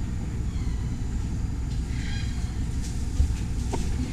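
Steady low rumble, with a faint high chirp about two seconds in and a single soft knock a second later.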